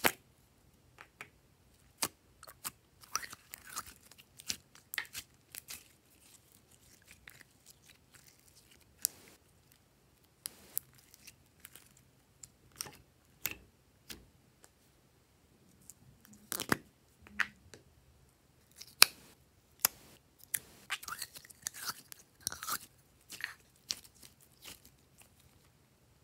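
Glossy slime poured from a cup and handled: scattered wet pops, clicks and squelches, with a denser run of crackling squishes near the end.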